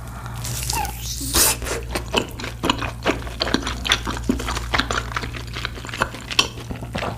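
Close-miked eating: irregular crunching and wet chewing clicks, several a second.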